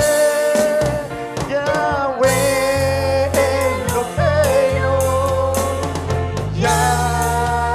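Live worship band: a man sings long held notes with vibrato, backed by an electric bass guitar playing sustained low notes and an electronic drum kit with regular cymbal strikes.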